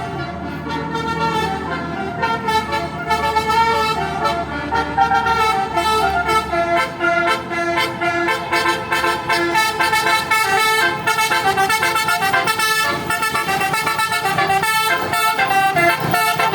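Bus 'telolet' multi-tone horn playing a melody of changing notes, which comes quicker and choppier from about eight seconds in. A low rumble runs under it for the first six seconds or so.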